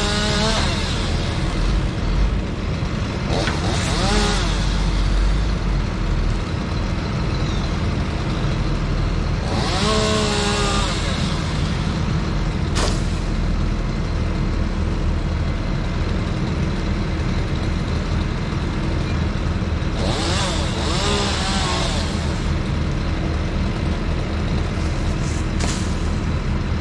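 Bucket truck's engine running steadily with a low rumble, the engine kept running to power the raised aerial boom. Over it come a few brief rising-and-falling sounds about a second long, and a single sharp click about halfway through.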